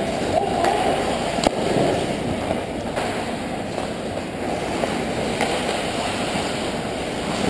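Ice hockey game noise picked up by a net-mounted camera: a dense, muffled hiss and rumble of skates on ice and the rink, broken by three sharp clacks.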